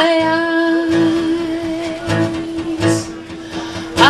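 Live acoustic song: a woman's voice holds one long wordless note, sliding up into it at the start and again near the end, over a strummed acoustic guitar.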